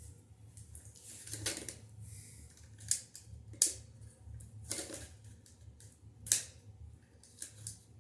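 A series of about six sharp clicks and short scrapes of hard parts being handled, irregularly spaced, over a steady low hum.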